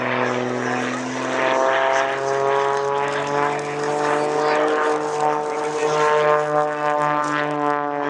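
Single-engine aerobatic propeller plane's piston engine and propeller running hard through a manoeuvre, a steady drone that rises a little in pitch around the middle and falls again.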